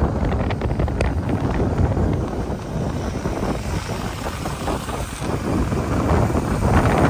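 Wind buffeting the microphone on a moving vehicle, a dense, gusty rumble over engine and road noise.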